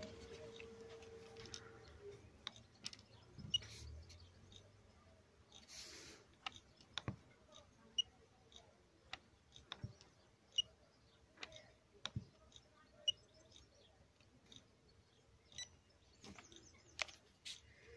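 Scattered light clicks and taps from handling an ElektroPhysik MiniTest 725 coating thickness gauge: its buttons pressed and its probe set down on the plastic calibration standards, about one click a second.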